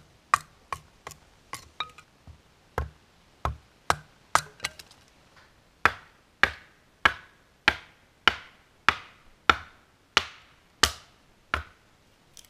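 Hatchet splitting kindling: sharp wooden knocks, irregular at first, then from about halfway a steady run of about ten strikes roughly every 0.6 s, each with a short ring.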